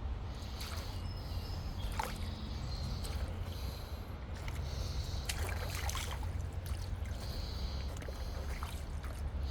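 Water sloshing and splashing irregularly around feet wading through a shallow river channel, over a steady low rumble.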